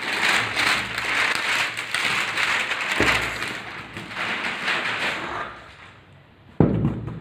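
Packaging on a fireworks gift box being torn and crinkled open, a rustling that dies away after about five seconds. A sudden thump comes near the end.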